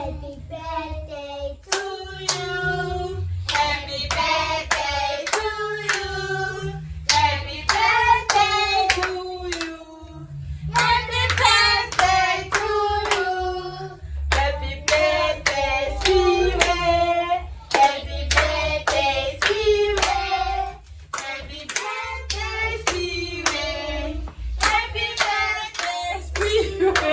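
A group of people singing a birthday song together, clapping their hands along in a steady beat of about two claps a second.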